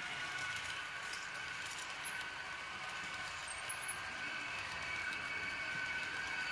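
H0-scale Märklin model train running past on the layout: a steady whine from the motor and a hiss of the wheels on the track, with a few light clicks, growing slightly louder toward the end.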